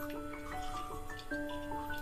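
Instrumental background music: a gentle melody of held notes, several sounding together and changing every half second or so.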